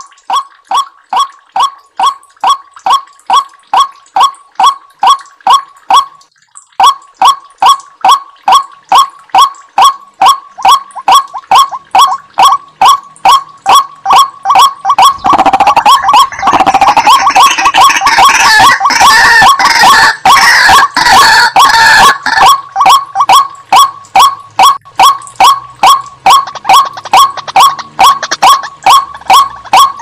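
White-breasted waterhen calling: one note repeated over and over, about two to three a second, with a short break about six seconds in. In the middle the calls thicken into a harsher stretch of overlapping calls for about seven seconds, then the steady repetition returns.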